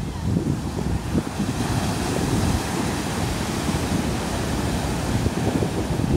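Atlantic Ocean surf breaking and washing in, a steady hiss that swells about a second and a half in. Wind buffets the microphone underneath it.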